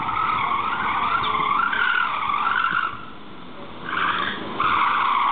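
Dacia Logan's tyres squealing under hard cornering, a wavering, loud squeal that breaks off for about a second around three seconds in, then starts again briefly and once more near the end.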